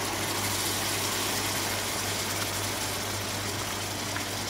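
Hot caramel of sugar and butter sizzling and bubbling hard in a steel pot as cream is poured into it, a steady hiss over a constant low hum.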